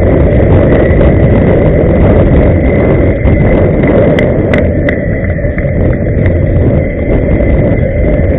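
Inline skate wheels rolling on the road, a steady loud rumble, with a thin steady high tone running through it.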